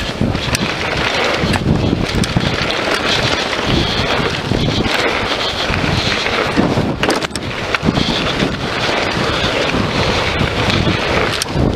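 Wind rushing over an action camera's microphone and a Scott Voltage FR 730 downhill mountain bike's tyres rolling on a dirt and gravel trail at speed, with occasional sharp clicks and knocks from the bike.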